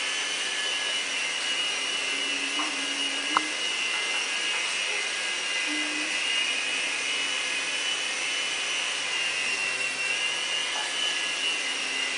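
Electric motor and rotors of a MiniFlyer 4-channel mini RC helicopter in flight: a steady high-pitched whine that sags slightly in pitch over the seconds. A single sharp click comes about three and a half seconds in.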